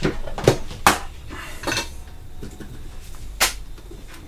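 Soldering tools being handled on a workbench as the solder reel and soldering iron are picked up: a handful of sharp, uneven clinks and knocks of small metal and plastic objects.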